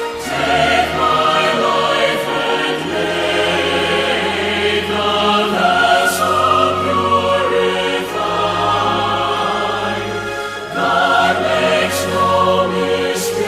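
Background music: a choir singing held chords that change every second or two.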